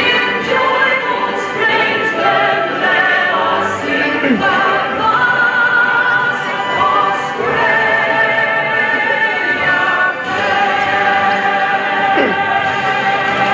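A national anthem sung in an operatic style over a musical accompaniment, the voice holding long notes with wide vibrato.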